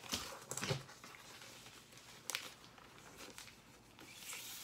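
Record sleeves being handled and set aside: rustling of cardboard and paper with a few soft knocks, a cluster in the first second and a sharper click a little past two seconds in.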